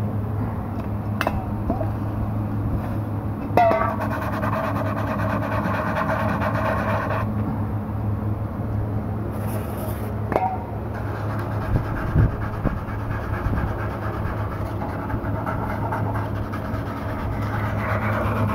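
Steady low hum of workshop machinery, with a few sharp metallic clicks and a whining tone that sets in about four seconds in and stops a few seconds later.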